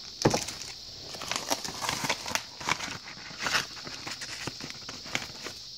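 Packaging rustled and handled by hand, with a scatter of irregular clicks and crinkles, over the steady high chirring of crickets in the background.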